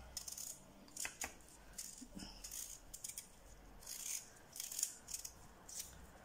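Small knife peeling a red-skinned potato: faint, short scraping strokes of the blade cutting through the skin at irregular intervals.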